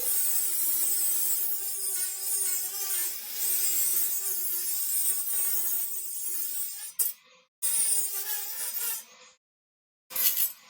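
Small handheld rotary tool with a cutting wheel whining as it cuts into thin aluminium heatsink, with a high grinding hiss. The whine wavers a little with the load. It stops about seven seconds in, runs again briefly, then gives one short burst near the end.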